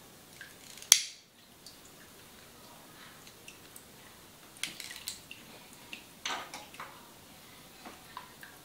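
Scattered soft clicks and short rustles of hair being parted and handled with a slender tool and fingertips during a head massage, with one sharp, much louder click about a second in.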